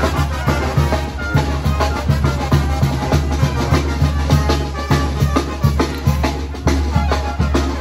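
Festive band music with a steady drum beat and a low bass line, accompanying a dancing procession.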